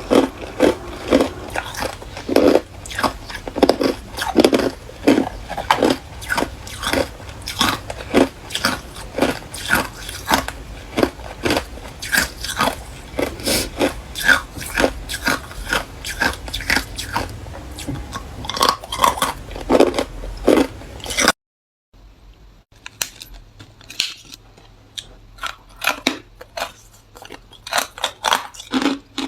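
Ice being bitten and chewed close to the microphone: a dense run of sharp, loud crunches, a couple a second, then after a brief dead-silent break about 21 seconds in, sparser and quieter crunching.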